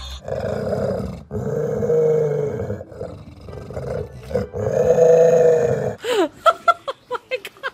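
An animal growling in four long, drawn-out spells, followed about six seconds in by a run of short, quick high-pitched cries.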